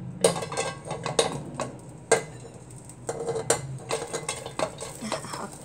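Stainless mesh strainer knocking and clinking against the rim of a cooking pot as drained, part-cooked rice is shaken out of it: a string of irregular metallic taps.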